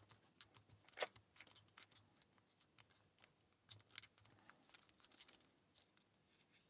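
Faint, irregular clicks and light scraping of a rake pick being worked in the keyway of a cheap four-pin padlock, with a sharper click about a second in and a few more around four seconds in.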